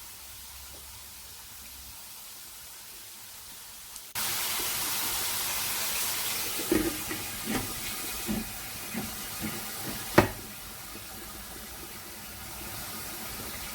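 Chicken fillets sizzling in an oiled frying pan: a steady hiss that turns abruptly louder about four seconds in. A few light knocks follow, with one sharp clack near ten seconds.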